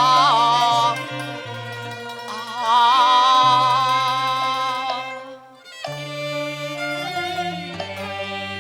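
Cantonese opera music: a sung note held with vibrato ends about a second in, then the accompanying ensemble plays an instrumental interlude led by a bowed string melody.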